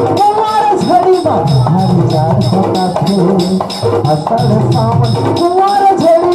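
Instrumental interlude of a Chhattisgarhi folk song: a bending melody line over a low drum pattern and a quick, steady ticking beat.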